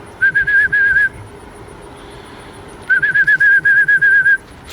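A person whistling a warbling, trilled call in two bursts, a short one and then a longer one, to call a racing pigeon down into the loft.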